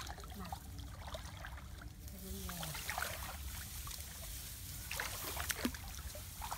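Water sloshing and splashing around legs wading through a flooded rice paddy. From about two seconds in, rice stalks rustle and crackle against bodies pushing through them.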